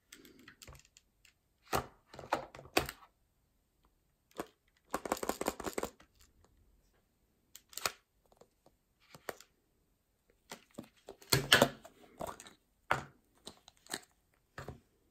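Hard plastic toys being handled: scattered clicks and clatters of a plastic claw-grabber toy and a plastic surprise egg being pulled open. A rattle lasts about a second, five seconds in, and the loudest clatter comes a little past the middle.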